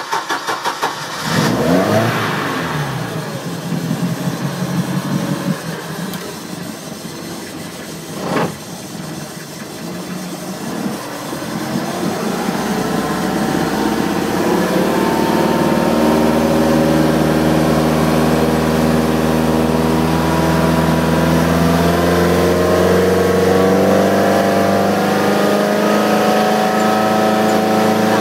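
3.0-litre MerCruiser four-cylinder sterndrive engine starting, then running unevenly at idle, with a single knock about eight seconds in. From about twelve seconds it is throttled up, the pitch rising, and it settles into a steady higher-revving note as the boat gets under way.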